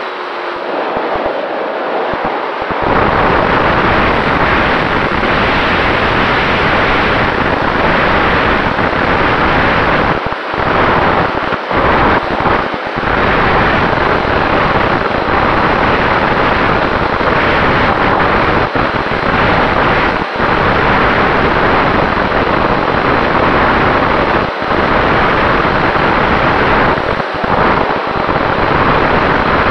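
Loud wind noise on the onboard camera's microphone of a Sonicmodell Mako flying wing in flight, with a faint steady whine from its electric motor and propeller underneath.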